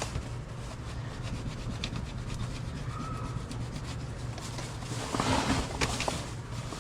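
Hands rubbing and handling a drysuit's latex neck seal and suit material, with scattered light clicks and a louder stretch of rubbing about five seconds in, over a steady low hum.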